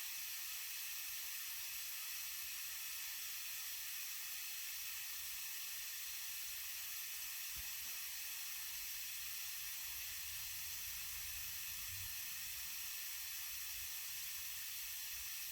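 Compressed air hissing steadily through an air chuck into a car tire as it is inflated after a plug repair; the hiss stops abruptly just as filling pauses to check the pressure.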